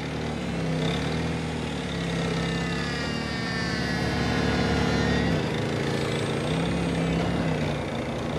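Manitou 30 D diesel forklift driving with its load, the engine running steadily with its pitch rising and falling a little, and a faint high whine gliding over it in the middle.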